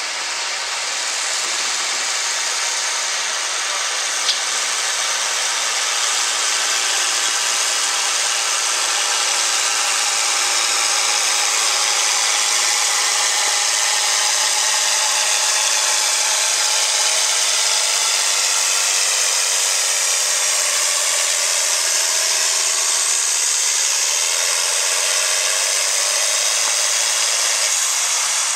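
John Deere farm tractor's diesel engine running loud and steady under heavy load as it drags a weight-transfer sled, with a single sharp click about four seconds in.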